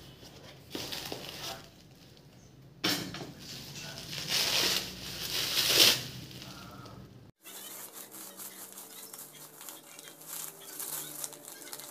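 Plastic bubble wrap crinkling and rustling as it is pulled out of a cardboard box and unwrapped by hand, loudest in the middle. About seven seconds in it cuts off abruptly and gives way to quieter, finer crackling.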